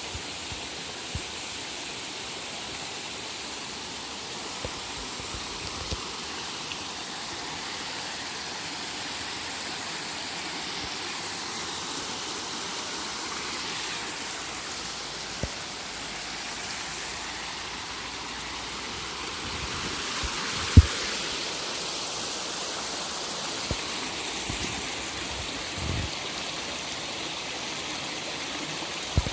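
Steady rush of running water, with a few faint knocks and one sharp knock about two-thirds of the way through.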